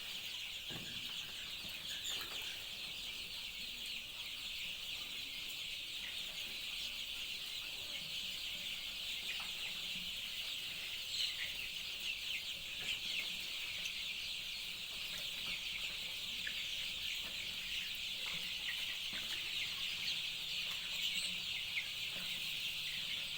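A large flock of young native chicks peeping all together, a dense, continuous high-pitched chorus of overlapping cheeps.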